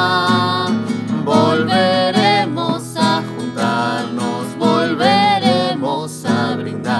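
A woman and a man singing a Spanish-language song in duet over a strummed acoustic guitar. A long held note fills the first second, then the melody moves on over the chords.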